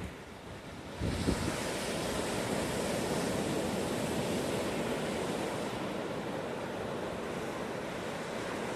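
Surf breaking on a sandy beach in strong wind of about 30 mph, with wind buffeting the microphone. The steady rush swells about a second in and holds.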